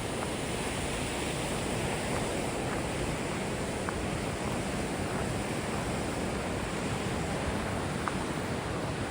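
Steady rushing of river rapids: an even, continuous roar of water.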